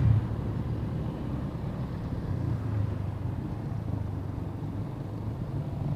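Motorcycle running steadily on the road, heard through a microphone inside a closed full-face helmet: an even, muffled low rumble of engine and riding noise.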